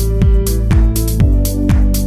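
Electronic dance music with a steady kick drum about twice a second, over held synth chords and bass.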